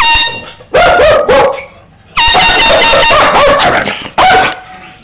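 Air horn sounded in several sudden blasts, the longest about a second, with a dog barking in response between and over the blasts.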